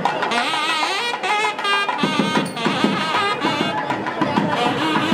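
A nadaswaram double-reed pipe plays a bending, ornamented melody over repeated thavil drum strokes: the periya melam ensemble of a Tamil temple procession.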